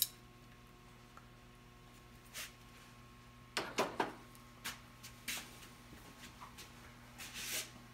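Quiet workshop room tone with a steady electrical hum, broken by a few soft knocks and rustles of handling and movement, the loudest cluster about halfway through and a brief swish near the end.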